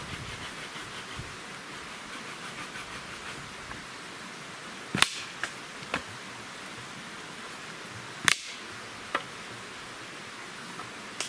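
Dry deadwood sticks cracking and knocking as firewood is picked up and tossed onto a pile: a handful of sharp single cracks, the loudest about five and eight seconds in, over a steady hiss.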